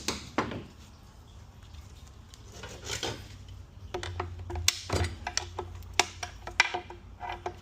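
Sharp metallic clicks and scrapes of hand tools working a stubborn bevel snap ring out of a 6F35 automatic transmission case. The clicks are sparse at first and come quickly, one after another, over the last few seconds.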